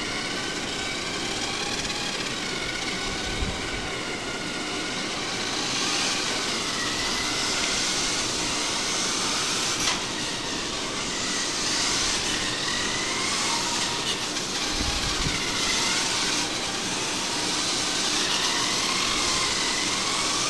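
Small electric motors of radio-controlled models whining, several at once, their pitch sliding up and down as the throttles change over a steady hiss.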